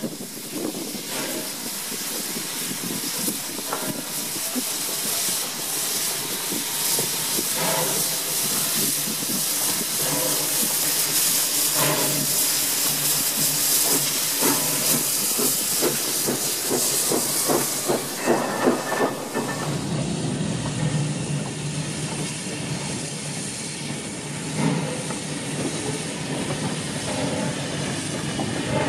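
Steam locomotive working slowly with a train of carriages: loud, steady steam hissing with irregular heavier beats and clanks. About 20 seconds in, the sound turns duller and lower, a rumble with less hiss.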